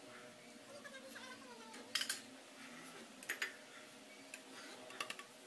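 Plates clinking against each other and on a tiled counter: short sharp knocks in pairs, about two seconds in, around three and a half seconds, and again about five seconds in, over faint room noise.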